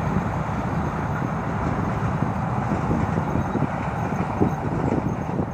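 Passenger train coaches of the Benapole Express running across a railway bridge: a steady rumble of steel wheels on the rails, easing slightly near the end as the train moves off.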